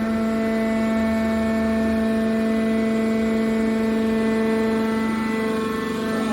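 Mobile metal baler's engine-driven hydraulic power unit running with a steady, pitched humming drone.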